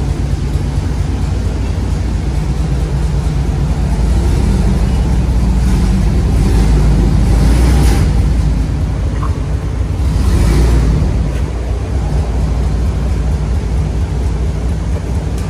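Lowered Chevy Silverado pickup's engine and exhaust rumbling as the truck moves slowly out of the wash bay, growing louder about halfway through and again a few seconds later.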